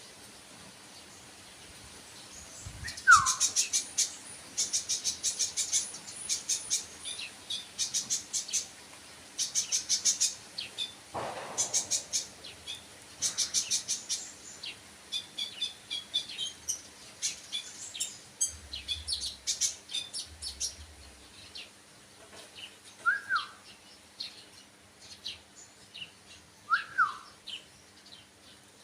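Songbird chirping in quick high trills, clusters of rapid notes coming every second or so, with a few short downward-slurred whistles about three seconds in and again near the end.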